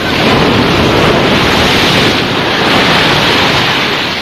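Black Sea surf washing onto the shore in loud swells, with wind buffeting the microphone.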